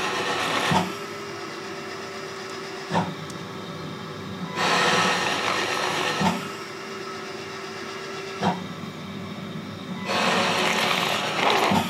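Mechanical cough-assist (insufflation–exsufflation) machine cycling on a child's airway: rushing blasts of air about every five seconds, each lasting one to two seconds, with short clicks between them and a steady hum underneath. It is vacuuming to draw up phlegm the child cannot cough out.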